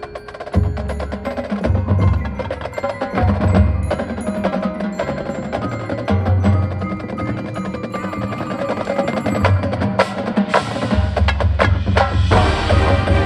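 High school marching band playing a percussion-heavy passage: rapid strikes from the percussion section with bell-like mallet tones over sustained band chords, and repeated low drum hits.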